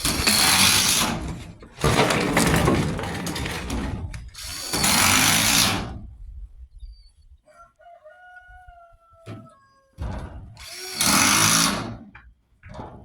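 A power tool runs in four loud bursts of one to two seconds each during work on metal roofing. In the quiet gap between bursts a rooster crows faintly, in one slightly falling call.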